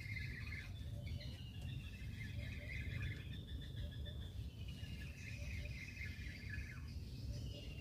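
Birds singing outdoors, a run of descending chirping trills repeating every couple of seconds, over a steady low rumble.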